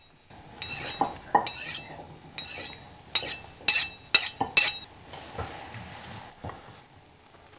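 Knife and fork clinking and scraping on a dinner plate: about eight sharp metallic clinks with a brief ring in the first five seconds, then a softer scrape that fades out about six seconds in.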